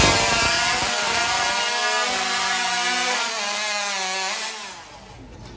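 Hot saw, a racing chainsaw, running at full throttle as it cuts through a log, its pitch wavering under load. The engine noise dies away near the end.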